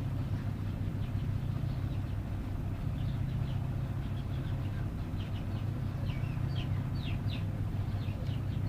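Birds chirping in short, quick calls, thickest a little past the middle, over a steady low hum.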